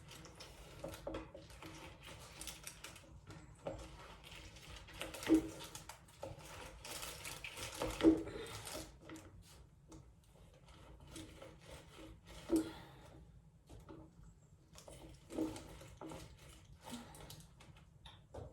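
Lemon halves being pressed and twisted on a manual juicer: irregular rubbing and scraping with four sharp knocks spread through.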